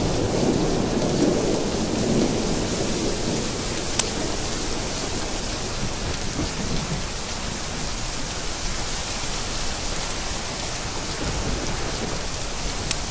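Steady heavy rain, with a low roll of thunder dying away over the first couple of seconds. Two sharp ticks stand out, one about four seconds in and one near the end.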